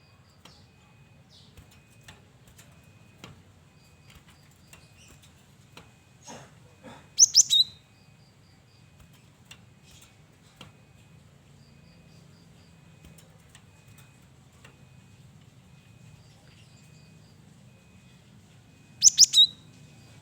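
Male cinereous tit (gelatik batu) calling in two loud bursts of about three quick, sharp, high notes, one about seven seconds in and one near the end. Faint chirps and clicks fill the gaps between them.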